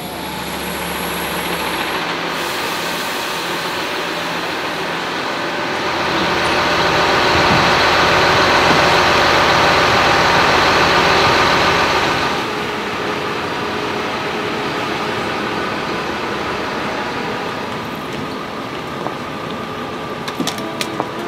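Large coach bus's diesel engine running at idle, a steady mechanical drone that swells for about six seconds in the middle. A few light clicks come near the end.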